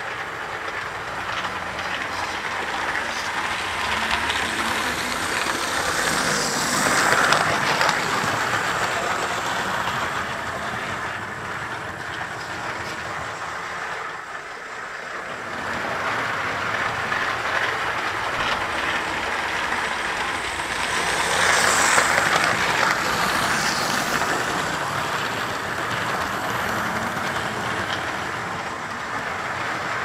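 Model trains running on the layout's track, a steady rumble of wheels on rail that swells as a train passes close about 7 seconds in and again about 22 seconds in, dropping back in between.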